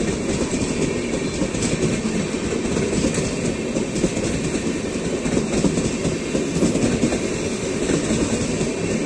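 Express train passenger coaches rolling past at speed: a steady loud rumble of wheels on rails with a clatter of the wheels over the rail joints.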